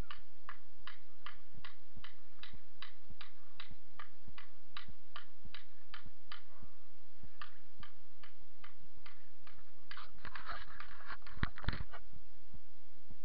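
Regular ticking, about two ticks a second, with a short flurry of louder clicks and rustling about ten seconds in.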